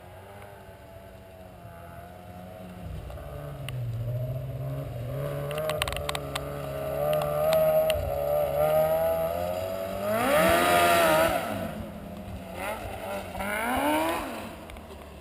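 2007 Yamaha Apex Mountain snowmobile's four-cylinder four-stroke engine running. Its pitch climbs gradually, then it is revved hard, rising and falling about ten seconds in (the loudest moment), with a shorter rev near the end.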